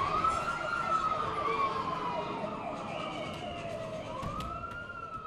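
Wailing emergency siren: two long wails, each rising quickly and then falling slowly, growing fainter toward the end.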